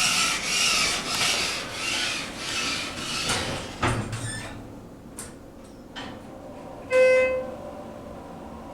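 Rhythmic rustling and scraping, about two strokes a second, for the first three seconds or so, then a knock; about seven seconds in, a single elevator chime sounds for half a second over a steady low hum.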